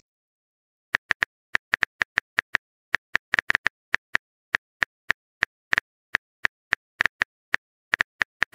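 Phone keyboard typing clicks: a quick, irregular run of short taps, about five a second, starting about a second in, as a chat message is typed out.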